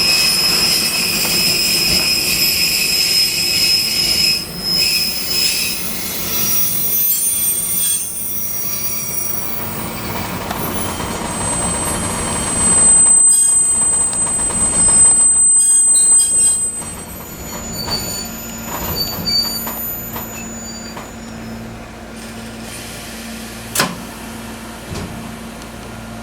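Fukui Railway 200 series electric railcar running, heard from on board: steady rail and running noise with high-pitched wheel squeal for the first several seconds and again, loudest, about halfway through. It is quieter over the last third, with a steady low hum.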